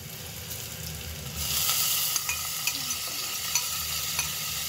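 Raw sliced beef tipped into a hot pan of oil with frying garlic, onion and ginger: the sizzle jumps up about a second and a half in as the meat hits the oil. A spatula scrapes and taps against the pan and the bowl, with small clicks.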